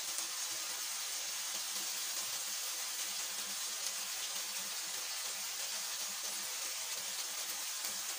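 Boneless chicken and spices sizzling in oil on a tawa: a steady hiss with light crackling.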